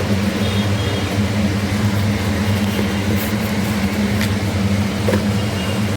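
Steady low mechanical hum, like a kitchen fan or motor, with a couple of light clicks of a spatula against the pan about four and five seconds in as the masala is stirred.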